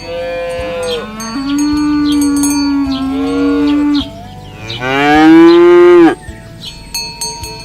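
Cattle mooing: two long moos, the first lasting about four seconds and stepping up in pitch partway through, the second, about five seconds in, louder, rising and then falling away.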